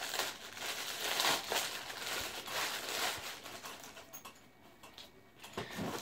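Clear plastic packaging bag crinkling as it is opened and a new BMX seat is pulled out of it. The rustling is dense for the first three seconds or so, then thins to scattered crackles.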